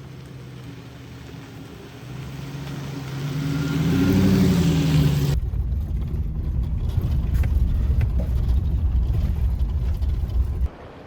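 A vehicle engine running and rising in pitch, then an abrupt switch to a loud, steady low rumble with a few faint ticks, like strong wind buffeting the microphone. The rumble cuts off sharply near the end.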